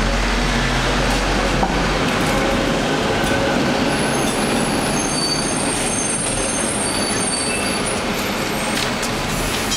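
City street noise with a tram going by on its rails; thin, high-pitched wheel squeal sounds from about four to eight seconds in.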